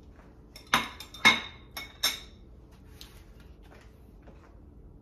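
A plate and fork set down and dishes handled on a kitchen counter: four sharp clinks with a short ring, about 0.7 to 2 seconds in, the second one the loudest.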